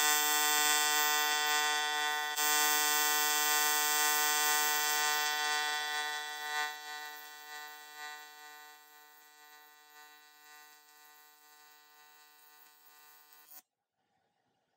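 AC TIG welding arc on aluminium, a steady electric buzz while a bead is laid with hand-fed filler rod. It grows gradually fainter over the second half and cuts off abruptly near the end.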